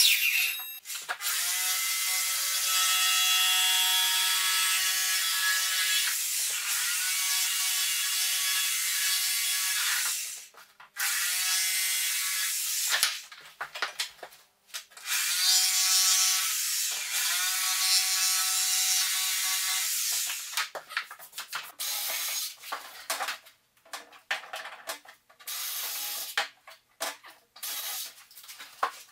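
Electric sliding mitre saw cutting skirting board in three runs, the first about nine seconds long, the motor note dropping as each run ends. For the last several seconds there are only scattered knocks and clatter of boards being handled.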